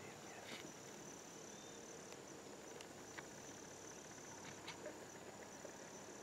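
Faint, steady high-pitched trill of insects such as crickets in the woods, with a few faint ticks.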